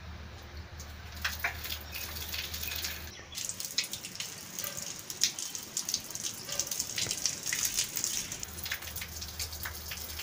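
Water jetting from the end fitting of a washing machine inlet hose and splattering on a rough concrete surface, a dense crackling splash that starts about three seconds in and dies down near the end. A few light clicks come before it, over a low hum.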